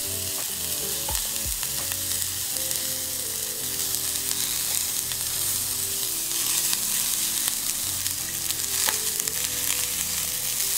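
Raw sausage meatballs sizzling in a tiny oiled frying pan, a steady frying hiss. A few soft ticks come as more meatballs are set down in the pan.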